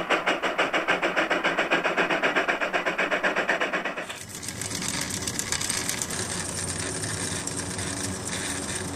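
Wilesco model steam tractor's steam engine running, its exhaust puffing in rapid, even beats. About four seconds in the sound changes to a softer, steadier running.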